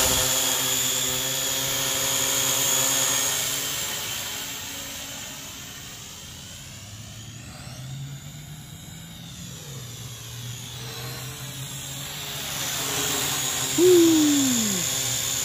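Quadcopter drone's propellers buzzing in flight, fading as it moves away and growing louder again as it comes back. A short falling tone sounds near the end.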